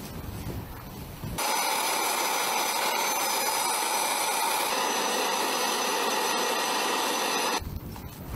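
A steady, hissing machine noise with a faint high whine. It starts abruptly about a second and a half in and cuts off just as abruptly near the end.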